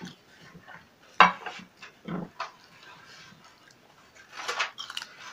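Eating by hand from a ceramic plate: fingers and a ring clinking against the plate, the sharpest clink about a second in, among smaller clicks and a short burst of handling noise near the end.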